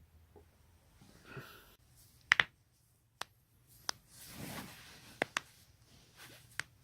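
Human joints cracking: a series of about seven sharp pops, the loudest a quick double pop a little over two seconds in. Softer rustling of body movement comes between them.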